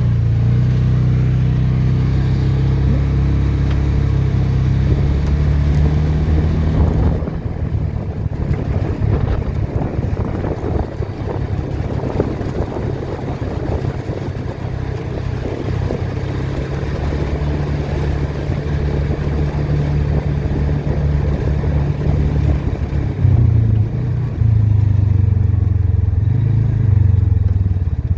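A small vehicle's engine running while it drives, its pitch shifting up and down with speed. A rougher, noisier stretch runs through the middle.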